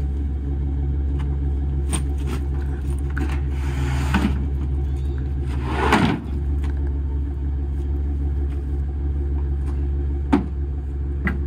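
Pickup truck engine idling steadily, while a large circular sawmill blade in a wooden frame is heaved onto the truck's bed, scraping across it and settling about six seconds in. A single sharp knock near the end.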